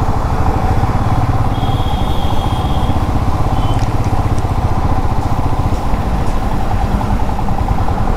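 Royal Enfield Himalayan motorcycle's single-cylinder engine running steadily under way, its firing pulses thudding evenly while the bike is ridden.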